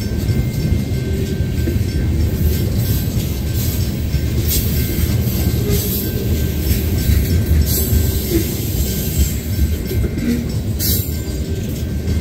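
Tank cars of a slow freight train rolling past: a steady low rumble of steel wheels on rail, with faint thin squeal tones and three sharp clicks.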